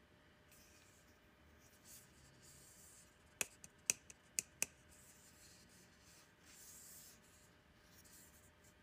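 Fingers rubbing and turning an A19 LED light bulb, making a faint scratchy rustle. Around the middle comes a quick run of about six sharp clicks within a second and a half.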